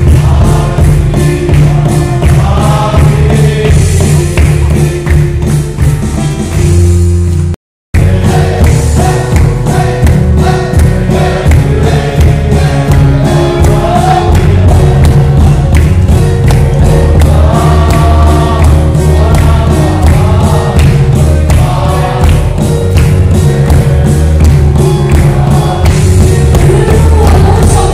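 A congregation singing a hymn together over a steady drum beat. The sound cuts out completely for a moment about eight seconds in.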